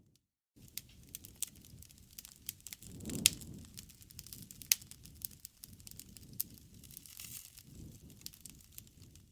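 Wood fire crackling, with scattered sharp pops and snaps over a low, soft rush of flame. The sound drops out entirely for a moment at the start. The loudest snaps come about three seconds in and again near five seconds.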